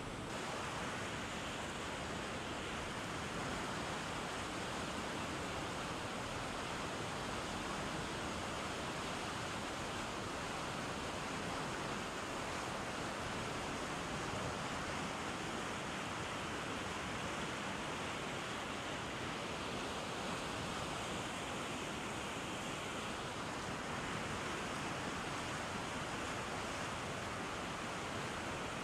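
Steady rushing of turbulent whitewater churning below a weir outflow, an even, unbroken wash of water noise.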